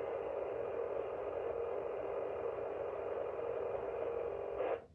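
Unidentified radio transmission heard from a radio receiver: a long, steady, harsh buzzing data-like noise that cuts off suddenly near the end. The listener guesses it could be a P25 digital radio signal.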